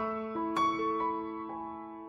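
Slow, soft background piano music, a few held notes dying away.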